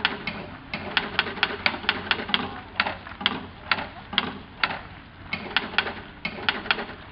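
Solenoid-driven mechanical woodpeckers pecking their percussion boxes: sharp taps, in quick runs of about four or five a second, then more spaced pecks about half a second apart, then quick runs again near the end.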